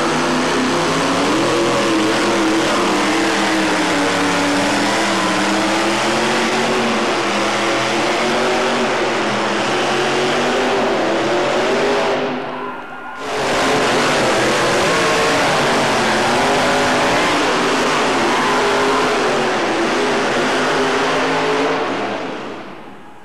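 A modified pulling pickup's engine at full throttle, dragging a weight-transfer sled down the track, loud with its pitch wavering. It breaks off briefly a little past the middle, picks up again, and falls away near the end.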